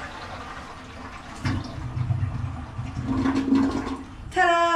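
Toilet being flushed as a test of its just-repaired tank parts, water rushing and gurgling through the bowl and swelling about a second and a half in. Near the end a person's voice holds a long note over it.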